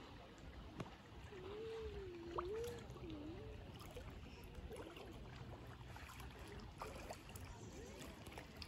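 Lakeside water ambience: a low steady rumble with faint lapping and splashing of water. About a second in, a faint wavering pitched sound rises and falls for about two seconds.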